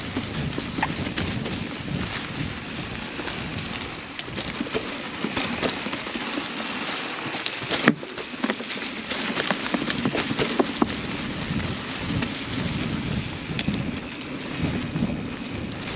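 Mountain bike ridden along a dirt trail: tyres rolling and crunching over the ground and the bike rattling over bumps with a run of small clicks and knocks, wind buffeting the microphone, and one sharp, loud knock about eight seconds in.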